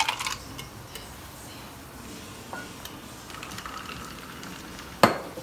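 Cocktail poured from a metal shaker into a glass, the pour trailing off in the first moment, followed by faint clinks and then one sharp knock near the end.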